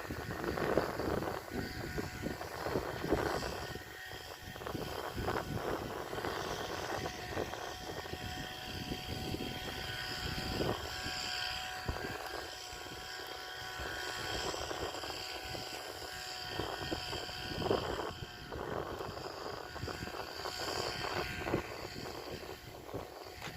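An engine running steadily, with a continuous noisy rumble and hiss around it.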